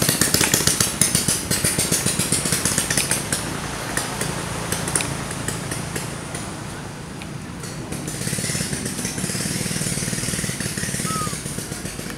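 A small engine running, with a rapid pulsing rattle in the first few seconds, then a steadier hum with hiss in the second half.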